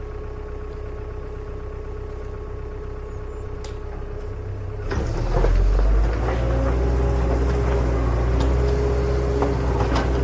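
Vehicle engine running steadily, then a louder, deeper engine rumble starting about five seconds in, as if the vehicle pulls away or works harder.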